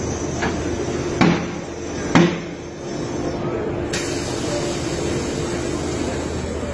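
Metal clanks from a tyre-changing machine as the wheel's centre clamp is worked: a light knock, then two loud clanks about a second apart. About four seconds in a steady air hiss starts, over a steady hum that stops near the end.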